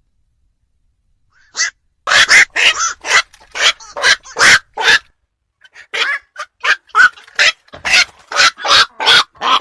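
Night heron giving a rapid series of short, rough barking calls, about three a second, starting about two seconds in with a brief pause near the middle.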